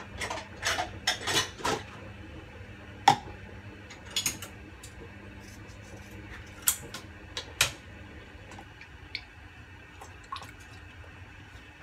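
Kitchen clatter: dishes and utensils being handled, a scatter of short clinks and knocks with one sharp knock about three seconds in.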